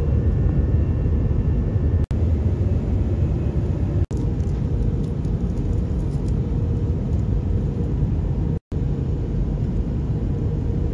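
Jet airliner cabin noise at a window seat: a loud, steady low rumble of engines and rushing air, with a faint higher whine during the first two seconds. It breaks off abruptly three times, for an instant each.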